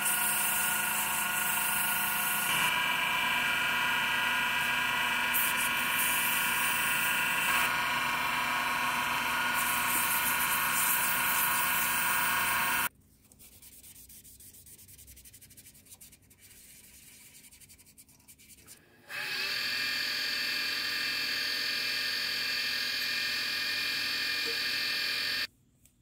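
Wood lathe running at speed while sandpaper rubs on the spinning wooden spoon handle: a steady motor whine with a hiss of sanding on top. It cuts off suddenly about 13 seconds in, leaving only faint rubbing, then runs again from about 19 seconds until it cuts off just before the end.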